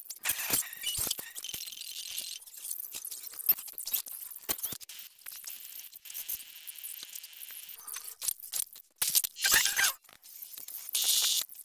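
Irregular crackling and clicking over a high hiss, with a louder noisy burst about nine seconds in.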